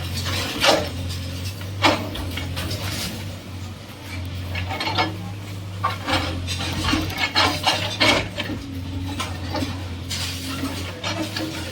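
Repeated metallic clanks and knocks at irregular intervals over a steady low engine hum, typical of a bulldozer breaking up structures and scraping debris.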